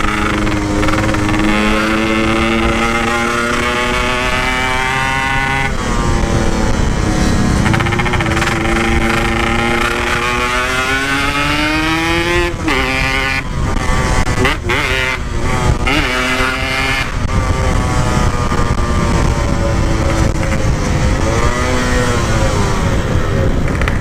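Yamaha RX-King two-stroke single on an open aftermarket exhaust, accelerating under way with its pitch climbing through the gears, a shift about six seconds in. Midway the throttle is closed and the note drops and stutters for a few seconds before it pulls up again. Wind rumbles on the microphone.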